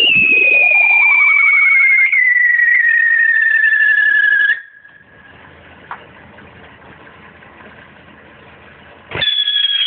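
Whistling fireworks screaming, several whistles at once, their pitch falling slowly as each burns down, with one wavering whistle sweeping down and back up. The whistling cuts off suddenly about four and a half seconds in, leaving a quiet low background with a single click. Another whistle starts abruptly near the end at a high pitch and begins to fall.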